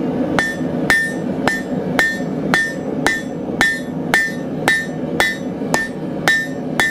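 Blacksmith's hammer striking a hot half-inch square steel bar on the anvil face at a steady pace of about two blows a second, drawing out a taper. Each blow gives a sharp strike with a short, high ring.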